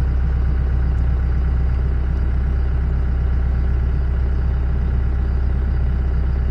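Steady low drone of a running motor, even and unbroken throughout.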